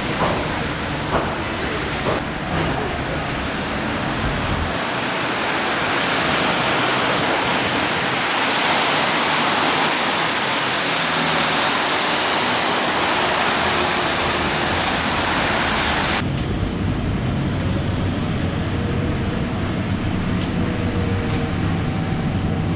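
Tyres hissing on a rain-soaked road as a BYD/Alexander Dennis Enviro400EV battery-electric double-decker approaches and passes close by, the hiss swelling as it goes past. About 16 seconds in it changes abruptly to the inside of the moving bus: a steadier cabin hum with a faint whine from the electric drive.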